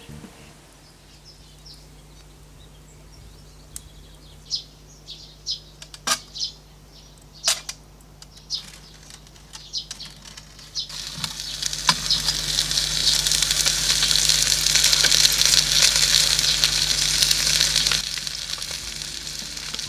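Scattered sharp ticks over a low hum. Then, about halfway through, a loud steady hissing crackle from the hot wood-fired oven rises and holds for several seconds before stopping abruptly near the end.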